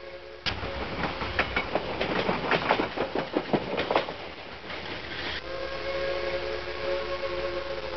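Train sound effect: a held multi-tone train horn cuts off half a second in, then wheels clatter over the rails for about five seconds. The horn chord sounds again over a low rumble for the last few seconds.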